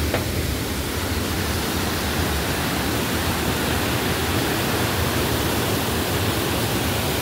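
Khanda Falls, a mountain waterfall in strong flow, rushing steadily over rock, a loud, even wash of white-water noise.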